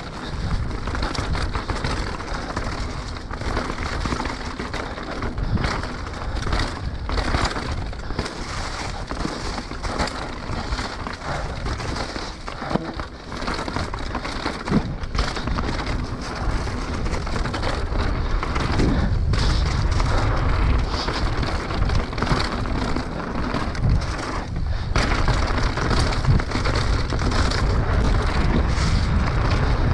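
Mountain bike riding down a rough trail, its tyres rumbling over the ground and the bike rattling loudly and constantly with irregular knocks and clatters.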